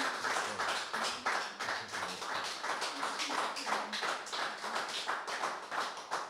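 A small group of people applauding, many hand claps overlapping.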